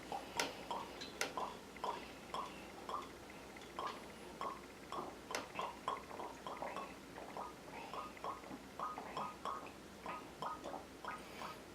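Quiet, repeated short kissing smacks from a man's lips, about three a second in an uneven rhythm, with a few sharper clicks among them.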